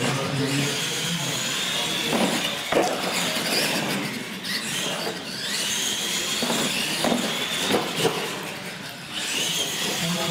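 Electric motors of radio-controlled monster trucks whining as they race, the pitch rising and falling as the throttle is worked, with a few sharp knocks along the way.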